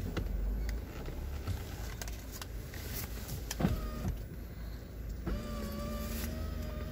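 Low rumble of a car creeping forward, heard from inside the cabin, with a few scattered clicks. About five seconds in, a steady electric motor whine starts and holds.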